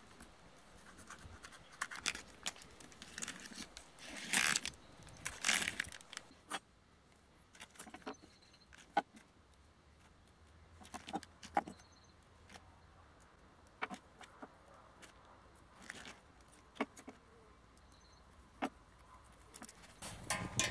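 Plastic vacuum pack of sausages being handled and torn open, with two short loud rips about four and five and a half seconds in, then scattered sharp clicks and taps of metal skewers being pushed through the sausages and set down.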